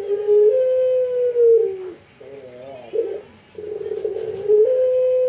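Puter pelung (ringneck dove) cooing. Each phrase is a short rough note, then a long drawn-out coo that drops in pitch at the end, heard twice about three seconds apart.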